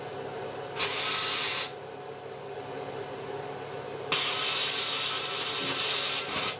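Electric welding arc crackling and hissing in two bursts that start and stop sharply: a short one about a second in and a longer one of about two and a half seconds from about four seconds in, as steel parts are welded.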